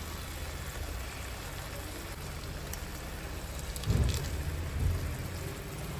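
Pan of brinjal and potato gravy sizzling steadily as a thick coconut-onion paste is poured into it from a steel bowl, with a short louder knock about four seconds in.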